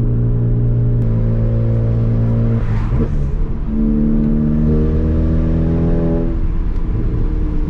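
Stage 2 VW Golf GTI MK7's turbocharged 2.0-litre four-cylinder running loud through a muffler-less catback, the engine note holding a steady pitch while driving. About three seconds in it breaks off briefly, as at a gear change, then settles to a steady note again.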